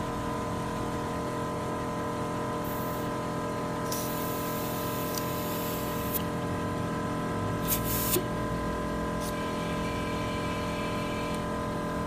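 Kleinn onboard air compressor running with a steady hum and whine. A hiss of air starts about four seconds in and lasts about two seconds, and a shorter hiss comes near eight seconds.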